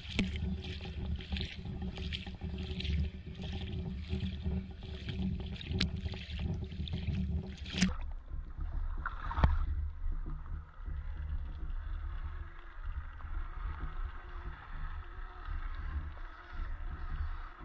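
River water splashing and sloshing as a Traxxas TRX4 RC crawler wades through it, the splashes pulsing about twice a second. About eight seconds in there is a sharp click, and from then on the sound is muffled and dull, with a faint steady whine.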